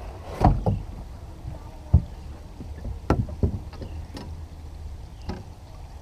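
Scattered knocks and thumps on a small fishing boat's deck as a person moves about and handles gear, about six in all, the sharpest about two seconds in, over a steady low rumble.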